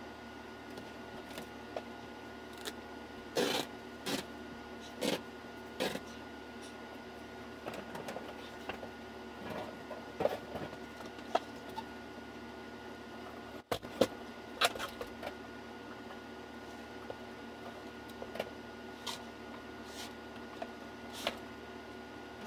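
Scattered knocks, clunks and short scrapes of furniture and a hand truck being moved about on a carpeted floor, over a steady room hum.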